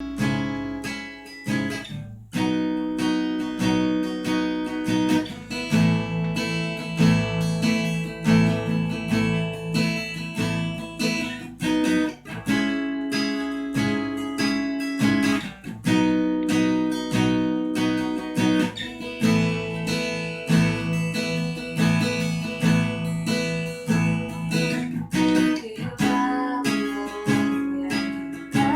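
Acoustic guitar strumming chords in a steady, repeating pattern: the instrumental introduction to a song.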